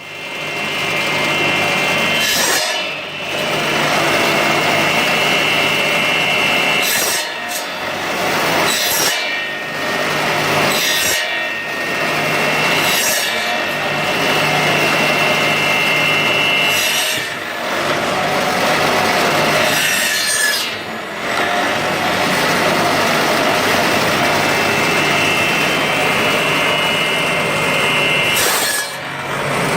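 Electric bone-cutting machine running and sawing through bone: a steady, loud rasping whine with brief dips every few seconds.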